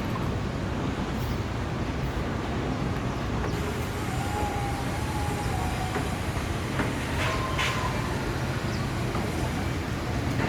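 Construction machinery engine running steadily, with a few scattered clicks and knocks and a faint thin tone for a second or two in the middle.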